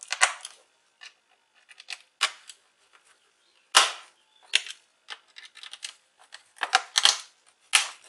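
Irregular sharp clicks and taps of a small screwdriver and hands on a laptop's plastic bottom cover as the cover is refitted and its screws are driven in, the loudest click about four seconds in.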